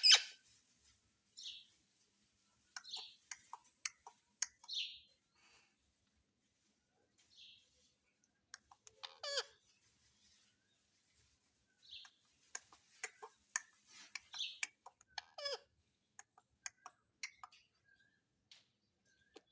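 Pet parrot making scattered short chirps, squawks and clicks between silent pauses, with a louder call right at the start.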